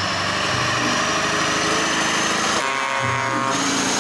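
Steady engine-like running noise, with a brief buzzy tone about three seconds in.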